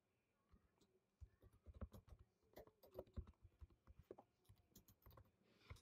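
Faint typing on a computer keyboard: irregular key clicks starting about a second in and going on in small clusters.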